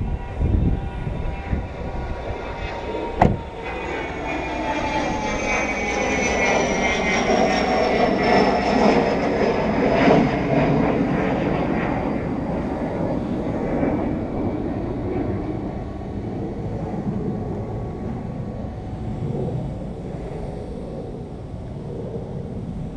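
A passing aircraft: a long rumble that swells and slowly fades, with a whine falling slowly in pitch as it goes by. A single sharp knock sounds about three seconds in.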